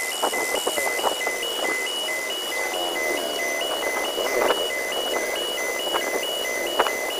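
Railway level-crossing warning alarm: two high electronic tones alternating in a rapid, steady rhythm, signalling that a train is approaching and the barriers are down. Waiting vehicle engines idle underneath.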